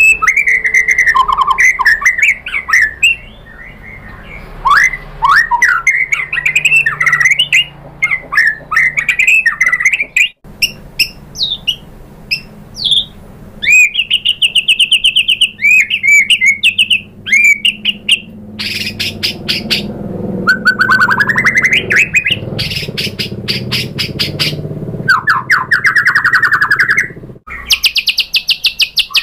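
White-rumped shama singing a varied song. It opens with whistled phrases sliding up and down, then goes into fast trills and rattling runs of rapid repeated notes from about the middle on.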